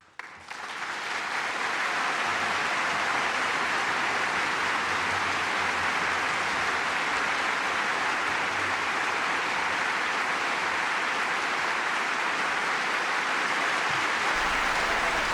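Studio audience applauding steadily, swelling in over the first two seconds.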